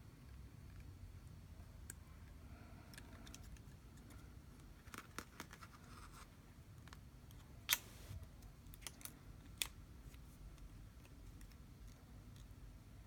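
Faint, scattered clicks and scratches of plastic prying picks working between a phone's screen and frame, with one sharper click a little past the middle.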